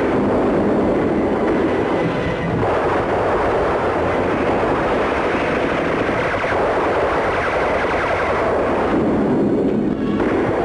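Battle sound effects: a loud, continuous roar of gunfire and blasts running together, with the machine-gun fire of an infantry advance.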